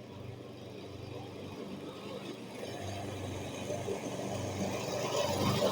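Lawn mower engine running at a steady pitch, growing steadily louder throughout.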